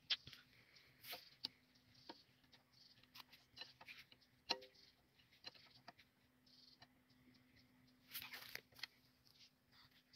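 Near silence: faint scattered clicks and taps of hands and a tool working on a stopped Petter diesel engine, with a short rustle about eight seconds in.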